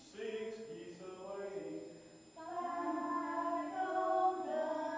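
A group of older men and women singing a Christmas song together, voices only with no instruments heard. The singing drops away briefly about two seconds in, then comes back louder.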